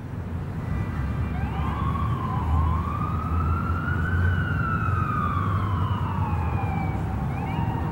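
Emergency vehicle siren wailing: its pitch glides slowly up to a peak and back down over several seconds, then starts to rise again near the end. It plays over a steady low rumble of street traffic.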